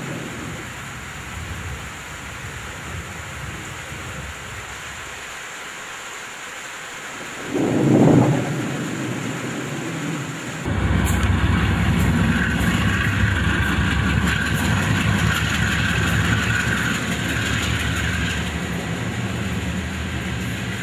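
A train running past on railroad tracks: a dense rumble with rattling clicks starts suddenly about ten seconds in and carries on, with a high steady tone over it for several seconds. Before that there is a lower rumble and one brief loud swell.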